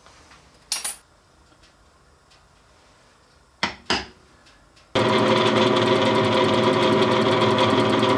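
A few short knocks from handwork on an ABS block, then about five seconds in a drill press starts running steadily, boring a 9/32-inch through hole in an orange ABS block.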